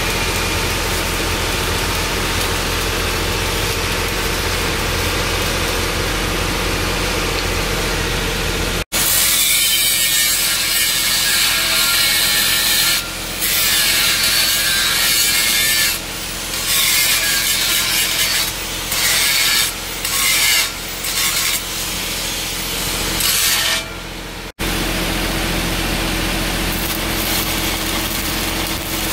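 Stick (SMAW) arc welding on a steel pipe joint: the arc crackles and hisses over a steady low hum. About nine seconds in, this gives way to an angle grinder grinding the weld, a loud hissing grind broken by several short lulls as the disc is lifted off. Near the end the arc welding resumes.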